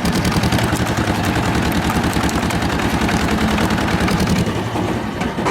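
An engine running steadily with a fast, even pulse, the kind of engine that powers a firewood processing machine.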